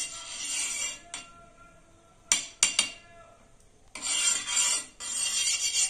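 A metal spoon clinking a few times against a flat tawa griddle, then scraping around it to spread ghee, with a louder scraping hiss near the end.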